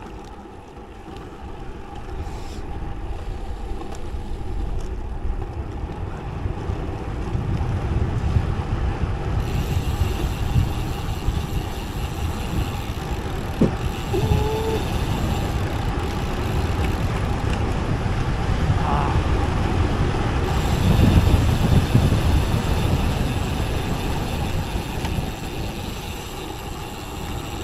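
Wind rushing over the microphone of a road bike on a fast descent, growing louder over the first several seconds and swelling again past the twenty-second mark. A brief rising squeal cuts through about fourteen seconds in.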